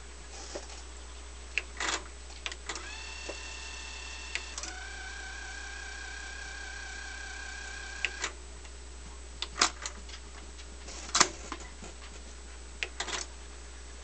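Teac V-900X cassette deck transport rewinding a tape: a reel-motor whine climbs to speed and runs steady for several seconds, then stops with a click about eight seconds in. Sharp clicks and clunks of the transport's push buttons and mechanism come before and after.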